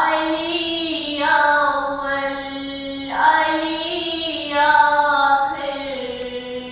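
A woman's unaccompanied devotional chanting, solo, in slow long-held notes: two long melodic phrases with a short breath about three seconds in.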